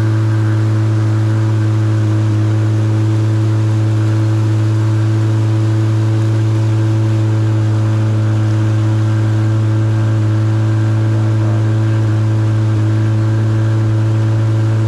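Evinrude outboard motor running steadily at speed, a constant low hum with its overtones held level throughout, over the rush of water from the wake.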